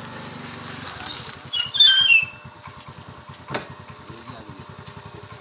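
A loud squawking cry lasting under a second, about a second and a half in, over the steady low putter of an engine running. A single sharp click comes a little past halfway.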